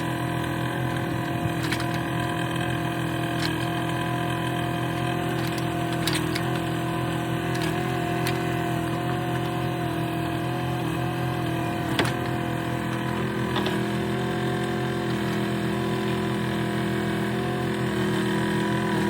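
Yanmar mini excavator's diesel engine running steadily while the machine is worked off a pickup bed onto a dirt ramp, with a few clunks and knocks, the sharpest about twelve seconds in.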